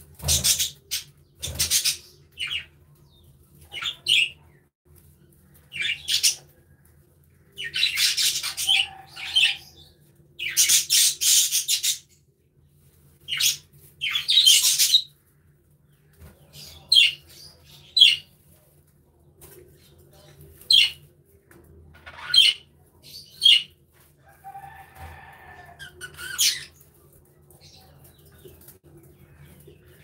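Budgerigars chirping and chattering in short bursts of a second or less, coming one after another, with a faint low steady hum underneath.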